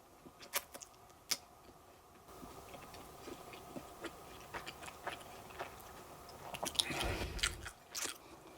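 A person chewing cake close to the microphone: scattered small wet mouth clicks, with a louder stretch of noise and a low thump about seven seconds in.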